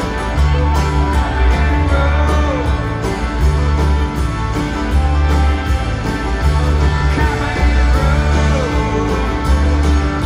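A live country-rock band playing loud: electric guitars over a pulsing bass and drum beat, with some singing, heard from the audience seats of a large hall.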